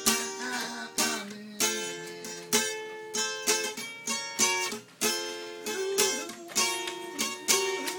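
Acoustic guitar strummed in a steady rhythm, about two strums a second, each chord ringing out until the next.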